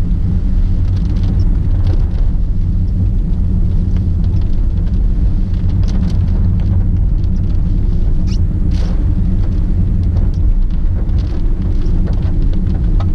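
Steady low road and wind rumble inside the cabin of a first-generation Honda Freed driving through typhoon rain, with scattered light ticks and a brief hiss about nine seconds in.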